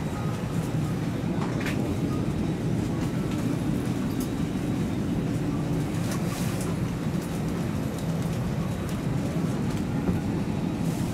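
Steady low rumble of a parked airliner's cabin ventilation, with scattered faint clicks and rustles.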